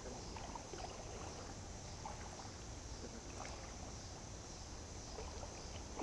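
Faint creek ambience: quiet water movement and a steady, high-pitched insect drone, with a few small splashes or ticks.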